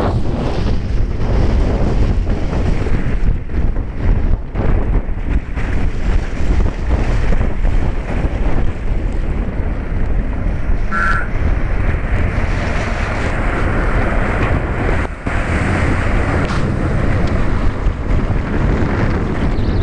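Wind buffeting the microphone over the steady rush of a moving vehicle's road noise. A short high tone sounds once, about halfway through.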